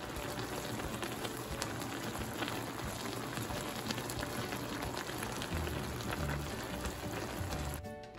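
Pork, shrimp and vegetables cooking in a stainless steel pan: a steady sizzling hiss full of fine crackles, which drops away shortly before the end.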